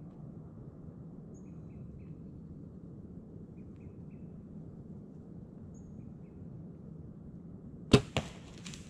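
Bow shot about eight seconds in: one sharp, loud crack of the released string, followed a fifth of a second later by a second smack as the arrow strikes, then a few faint rustles. Before it, quiet woods with a few faint bird chirps.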